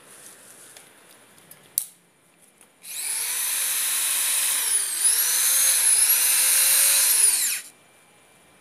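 Corded electric drill running for about five seconds. Its motor pitch dips briefly twice, then falls as it winds down and stops. A short click comes just before it starts.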